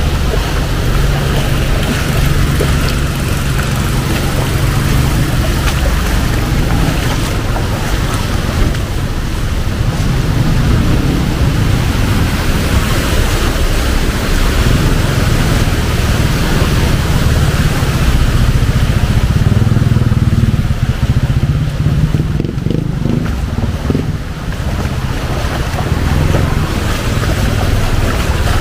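Heavy rain on a flooded city street: a steady hiss of rain and water over the low rumble of passing traffic, which swells about two-thirds of the way through.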